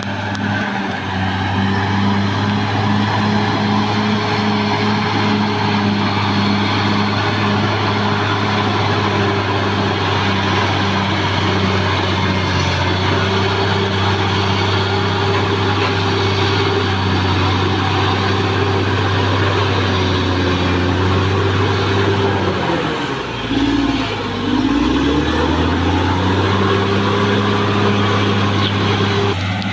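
Caterpillar D6R XL bulldozer's diesel engine running steadily, with a high whine above it. About three quarters of the way through, the engine pitch drops sharply for a couple of seconds and then climbs back.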